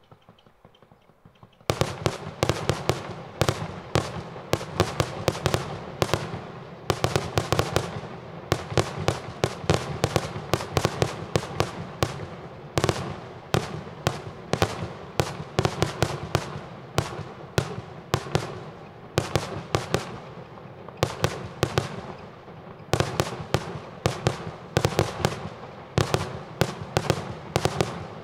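Maltese kaxxa tal-ħruġ aerial fireworks barrage: salutes bursting overhead in a rapid, continuous string of sharp bangs, several a second, starting about two seconds in.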